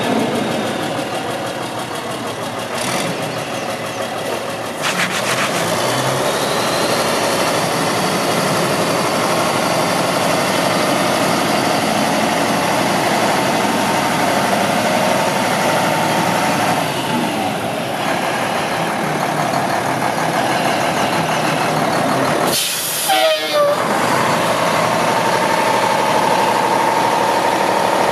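Diesel engine of a 2003 Mack CH612 day cab tractor running as the truck drives and manoeuvres. Late on comes a short sharp hiss of air from the air brakes.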